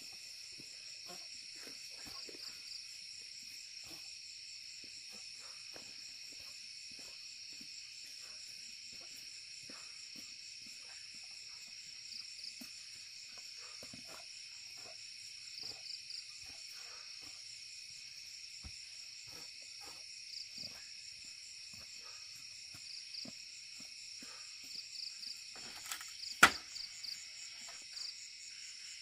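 A steady chorus of crickets and other insects, high-pitched and unbroken, with short chirps breaking in now and then, more often toward the end. A single sharp click stands out about three-quarters of the way through.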